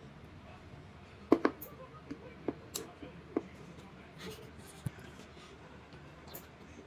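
A baby sucking and smacking on a frozen fruit popsicle, giving a string of short wet clicks and smacks, the loudest a quick double one about a second and a half in.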